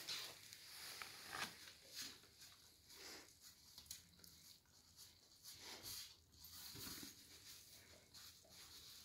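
Faint, irregular wet licks and light scrapes of a German Shepherd puppy's tongue cleaning out a shallow metal food bowl.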